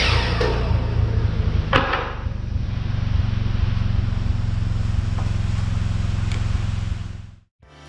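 A machine running steadily with a low, even hum, with two sharp clacks, one about two seconds in and one about six seconds in. The sound cuts off abruptly near the end.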